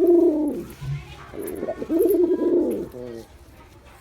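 Male pigeon cooing: two drawn-out coos that rise and fall in pitch, the second about a second and a half in, followed by a brief short note.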